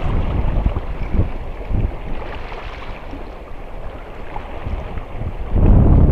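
Wind buffeting the microphone: uneven low rumbling gusts, heaviest at the start and again from about five and a half seconds in.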